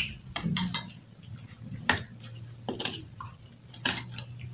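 Metal cutlery clinking and scraping against plates and a large baking tray during a meal, with scattered sharp clicks, the loudest right at the start. A low steady hum runs underneath.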